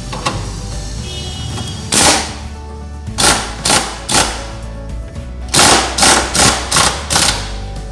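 Short bursts of an impact wrench running on bolts, about nine rattling bursts in two clusters, over steady background music.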